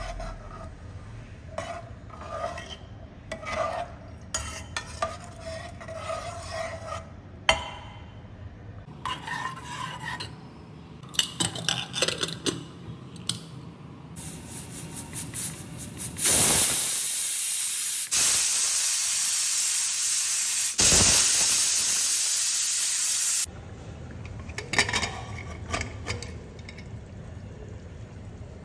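Metal spoon stirring and scraping curry in an aluminium pressure cooker, with a few clinks of metal on metal. About sixteen seconds in, a loud, even hiss of steam escaping the pressure cooker's valve runs for about seven seconds, broken by abrupt cuts, then stops suddenly.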